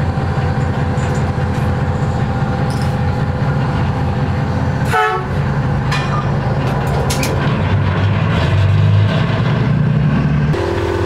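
Heavy diesel machinery on a construction barge, the crane working to pull steel beams, running loud and steady with a deep rumble and a steady droning tone. About five seconds in a short falling squeal cuts across it, and the low rumble swells under load for a couple of seconds near the end.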